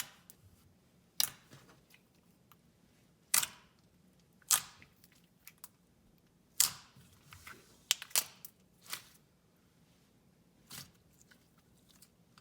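Thick clear slime being handled and squeezed, giving short, sharp pops and clicks at irregular intervals of a second or two.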